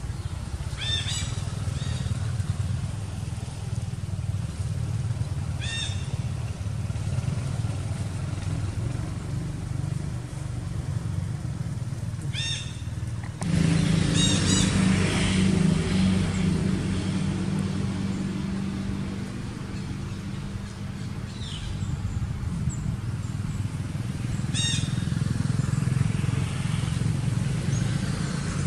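Outdoor ambience: a steady low rumble with short high chirps every few seconds. About halfway through, the sound changes abruptly and grows louder, with a steady low hum added.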